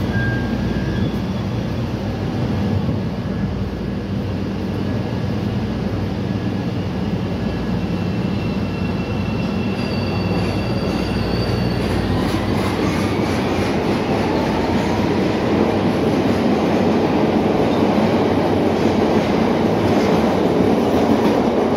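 CTA 5000-series subway train humming at the platform, then pulling away about twelve seconds in: its traction motors give a whine that rises in pitch as it speeds up. Wheel and rail noise grows with it.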